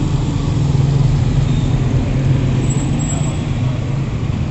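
Steady road traffic noise with a motor vehicle engine's low, even drone.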